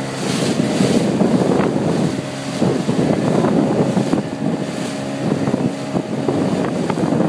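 Motorboat engine running as the boat moves across the water, with wind buffeting the microphone.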